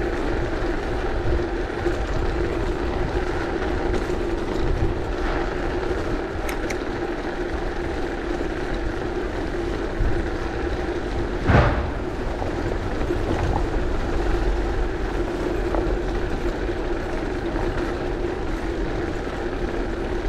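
Bicycle rolling over cobblestones, heard from a handlebar-mounted camera: a steady rumble and rattle with a constant hum. A single sharp knock about eleven and a half seconds in.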